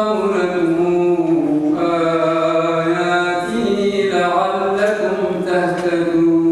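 A man's solo Quran recitation in chanted style, with long held notes that slide up and down in pitch.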